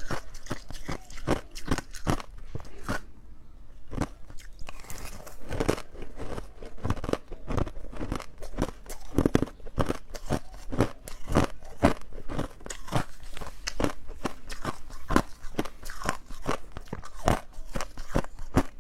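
Ice being bitten and chewed close to the microphone: a rapid, irregular run of sharp crunches and cracks. There is a short lull a few seconds in.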